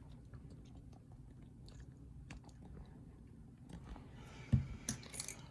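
Faint clicks and small taps of a mortise lock cylinder and its key being handled, with a sharper knock about four and a half seconds in.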